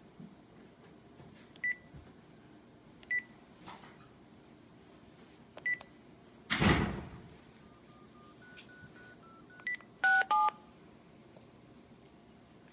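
Panasonic cordless phone handset being redialed: three short key beeps, a brief loud rustle about six and a half seconds in, then a quick run of faint dialing tones and two louder touch-tone (DTMF) tones from the speakerphone as the number goes out.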